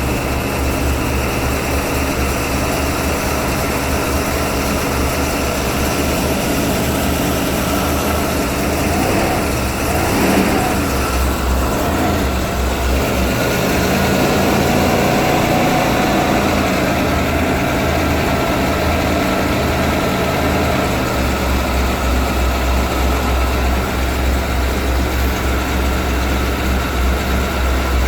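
1991 Ford E-350's 5.8-litre V8 running at idle in deep cold, soon after the day's first start. It runs steadily, swells slightly for several seconds in the middle, then settles back.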